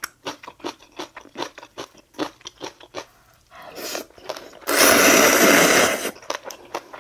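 Close-miked eating: crunchy chewing in quick clicks for about three seconds, then a loud slurp of ramen noodles lasting over a second, about five seconds in.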